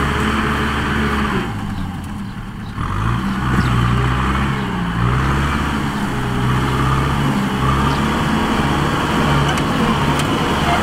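Kubota tractor's diesel engine running steadily under load while pulling a rotary tiller through soil. About two seconds in it briefly drops in level, then picks back up with a rise in pitch.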